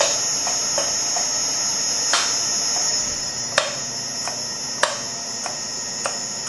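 Tormach PCNC 1100 spindle motor running unloaded with its belt off, a steady hum, while the power drawbar foot pedal is pressed with several sharp clicks. No drawbar release is heard, because the spindle interlock holds it off while the motor runs. The hum gets a little quieter about three seconds in.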